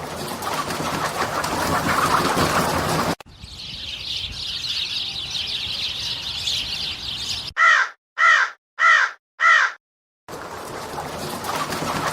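A corvid cawing four times, harsh calls about half a second apart that fall slightly in pitch. Before it there is a steady noisy rush, then a high hissing sound, and the rush comes back near the end.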